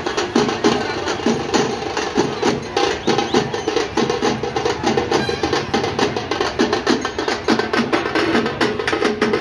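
Drums beaten in a fast, even rhythm, several strokes a second, keeping up without a break.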